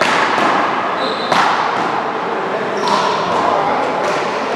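A rubber court ball smacking three times, about a second and a half apart, each hit echoing in a large indoor hall.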